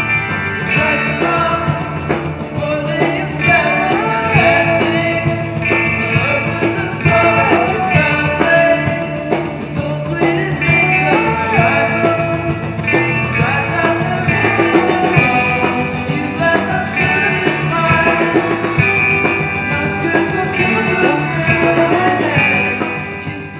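Rock-style background music with guitar and a gliding vocal line, fading out near the end.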